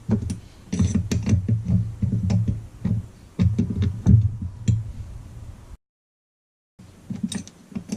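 Hand wrench clicking and knocking in irregular runs as the cylinder bolts on a Stihl MS 200T chainsaw are tightened, over a steady low rumble.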